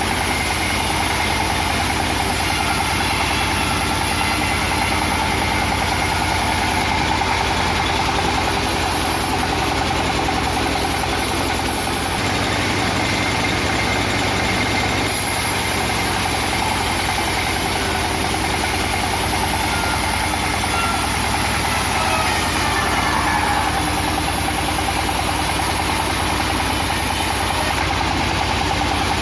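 Engine-driven woodcutting machine running steadily at a constant pitch, with a deep rhythmic hum; the pitch dips slightly once, about two-thirds of the way through.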